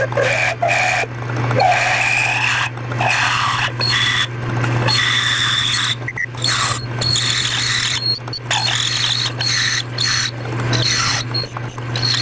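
A lathe runs with a steady hum while a cutting tool scrapes and squeals irregularly against the spinning workpiece, with brief breaks in the cut.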